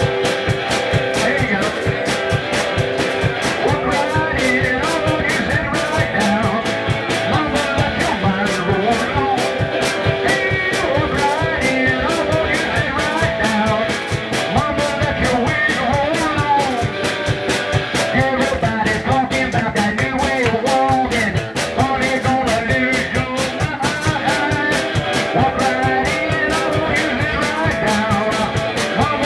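Live blues and rock-and-roll band playing with a fast, steady beat: guitar, drum kit and a washboard scraped for rhythm.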